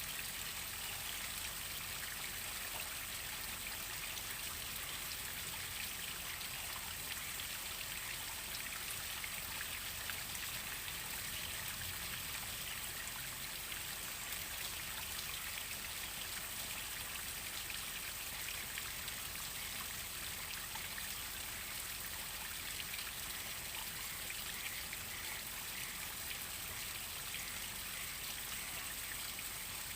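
Waterfall: a steady rush and splash of falling water, even and unbroken throughout.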